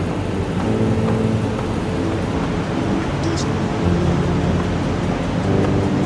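Background music with held notes that step from one pitch to the next.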